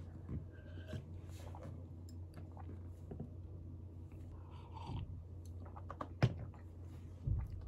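Quiet room tone with a steady low hum and a few faint small clicks and handling sounds, a sharp click about six seconds in and a dull thump near the end.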